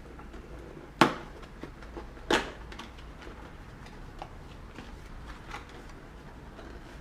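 Intel processor's retail box being opened by hand: two sharp snaps of the packaging, about a second in and again a little over two seconds in, the second a touch longer, with light clicks and rustles of handling cardboard and plastic in between.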